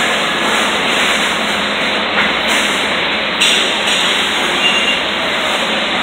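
Steady, loud machine noise with a few faint clicks.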